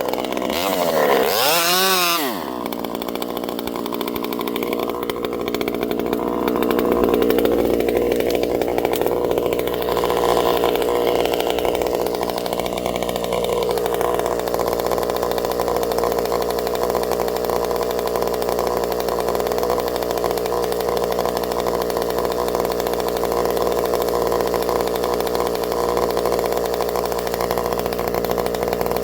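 Vintage Pioneer P51 two-stroke chainsaw running. The engine note wavers up and down over the first two seconds, then holds a steady high-speed run for the rest, a little louder from about seven seconds in.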